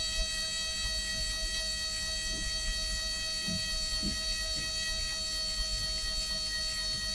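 CreationSpace Pro pocket electric screwdriver used as a drill, its motor running with a steady whine while the bit cuts through acrylic sheet under light pressure, holding its speed.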